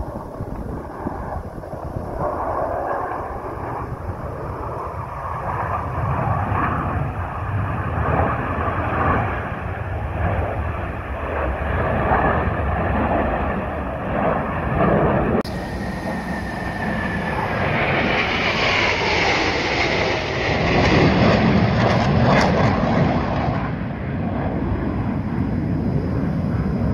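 Blue Angels F/A-18 Hornet jets flying over in formation, a steady jet roar. About halfway through, a whine falls in pitch, and the roar grows louder and brighter as the formation passes.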